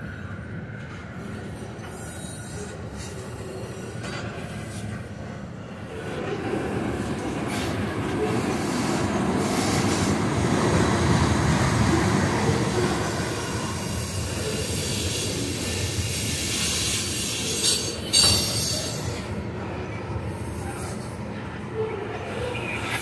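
Freight train tank cars rolling past, their steel wheels rumbling over the rails, louder from about six seconds in, with a sharp knock about eighteen seconds in.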